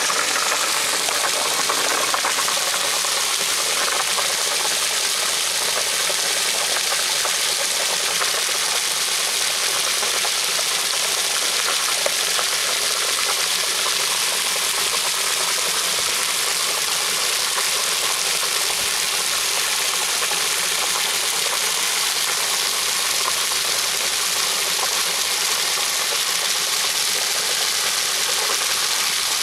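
A steady jet of water splashing into a shallow plastic kiddie pool, giving an even hiss, with a raccoon splashing and paddling in the water.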